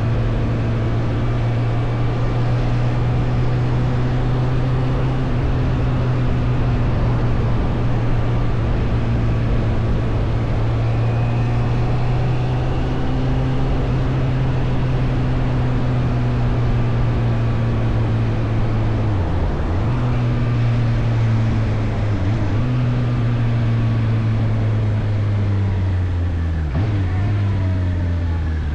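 Suzuki GSF 600 Bandit's inline-four engine running under way at steady revs, dipping briefly twice around the middle and falling in steps near the end.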